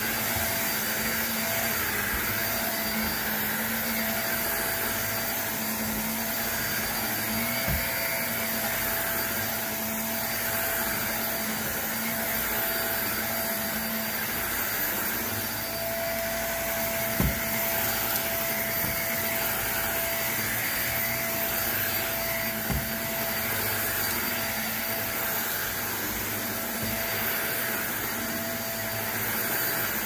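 Shark upright vacuum cleaner running steadily with its brushroll on as it is pushed over carpet. Three short sharp clicks cut through the motor sound, the loudest about halfway through.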